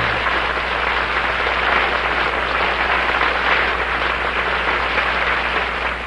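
Audience applauding steadily just after the choir and orchestra stop.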